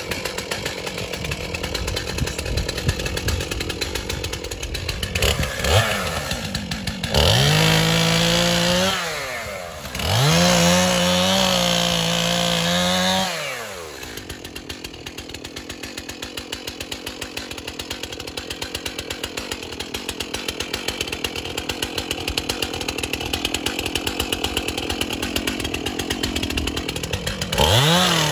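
Two-stroke chainsaw idling with a steady pulse, revved up twice for a few seconds each a quarter and half way in, then dropping back to idle. It revs up again near the end as the bar cuts into thin suckers and brush.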